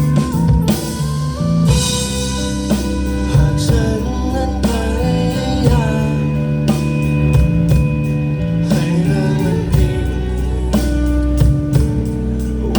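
Live band playing a rock song, with guitar, bass and drum kit.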